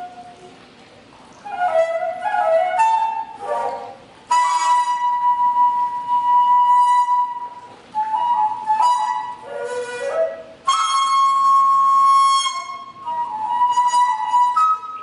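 Daegeum, the large Korean bamboo transverse flute, playing a solo phrase: long held notes, each broken by quick ornamented runs and pitch bends, with brief pauses between phrases.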